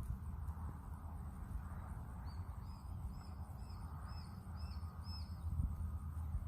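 A bird chirping a quick series of about seven short, high notes in the middle of the stretch, over a steady low rumble.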